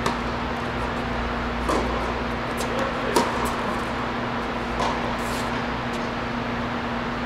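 Tennis balls struck by rackets and bouncing on a hard court during a rally: several sharp pops about every second and a half, over a steady low hum.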